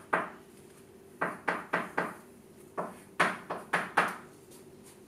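Chalk striking and tapping a blackboard as a formula is written: about ten short, sharp knocks in irregular clusters, a few of them close together.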